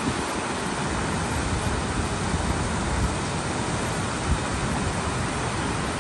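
Water rushing steadily over a river weir and churning into white water below it, an even, unbroken roar.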